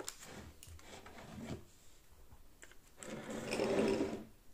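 Metal kitchen tongs and small glass bowls being handled on a table: a few light clicks, then about three seconds in, a rubbing scrape that lasts just over a second.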